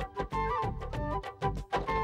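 Instrumental break in a Bollywood-style title song: a steady drum beat of about four strokes a second under a melody line.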